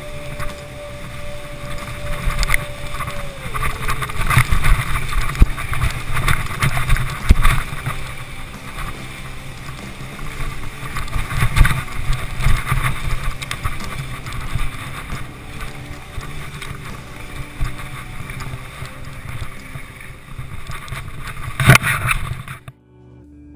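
Boots sliding and scraping down a steep snow slope in a standing glissade: a continuous rough rushing hiss with wind on the microphone and irregular knocks. A sharp knock comes near the end, just before the sound cuts off.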